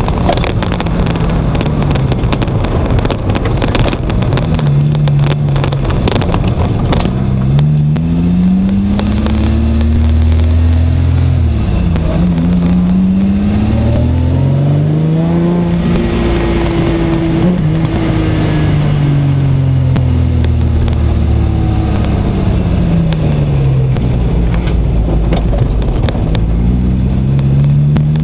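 Holden VN 3.8-litre V6 in a Datsun 1200 ute, heard from inside the cab while driving: the engine note rises and falls several times as it accelerates and eases off. There are scattered clicks and rattles through the first third.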